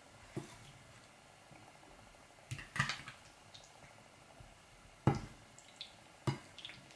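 Metal spoon stirring tofu cubes through a thick tomato-paste marinade in a ceramic bowl: a few short wet squelches and clinks of the spoon against the bowl, spaced out over several seconds.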